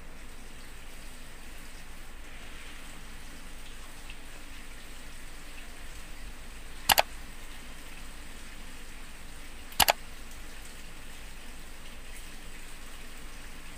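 Quiet sounds of someone eating with their fingers from a plate over a steady hiss. Two sharp clinks of tableware stand out, about seven seconds in and again about three seconds later, the second a quick double.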